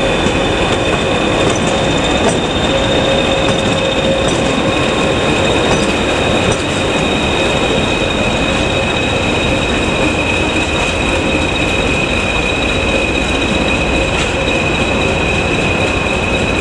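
Class 20 diesel locomotives, with English Electric 8SVT engines, hauling a train slowly out of the station: a steady engine and wheel rumble with steady high-pitched whistling tones over it.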